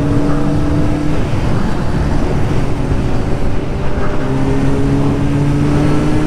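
Kawasaki Z900 inline-four with an aftermarket exhaust, heard from the rider's seat at highway speed. The engine note climbs, then drops away about a second in as the throttle is eased and wind rush takes over. About four seconds in it returns, rising steadily in pitch as the bike accelerates again.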